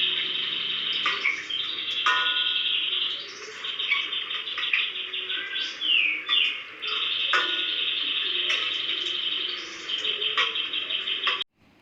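A songbird singing a long, dense run of rapid trills, chirps and whistles that cuts off abruptly near the end.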